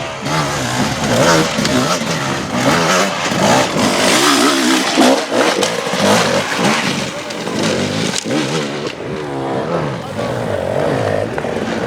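Enduro motorcycle engines revving hard, the throttle blipped again and again so the pitch rises and falls, as the bikes work through an obstacle section.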